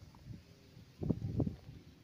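Low, uneven thuds and rumble of a handheld camera carried along on foot: footsteps and handling noise on the microphone, clustered about a second in.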